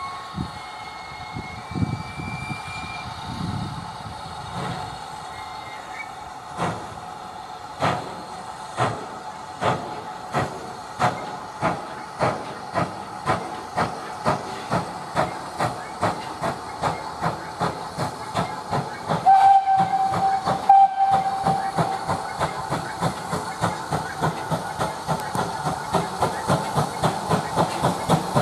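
GWR 5600 class 0-6-2 tank engine no. 5619 pulling away under steam, its exhaust beats starting slow and quickening steadily to about three a second, over a steady hiss of steam. One short whistle blast about two-thirds of the way through.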